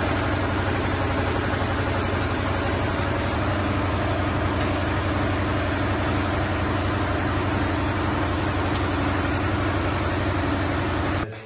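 Steady mechanical drone from a running machine, an even hum with a constant low pitch and no change in level, cutting off abruptly near the end.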